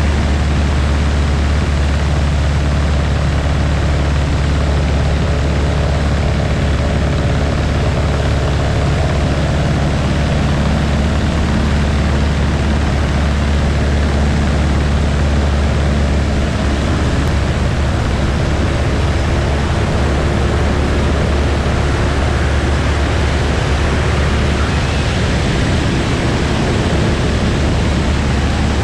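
Light propeller airplane in flight: steady engine and propeller drone with a deep low hum and a noisy hiss over it.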